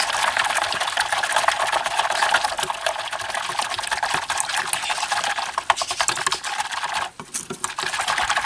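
A spatula stirring milk and chocolate pudding mix briskly in a stainless steel pot over the heat, a steady rapid scraping and sloshing against the pot, with a short pause about seven seconds in.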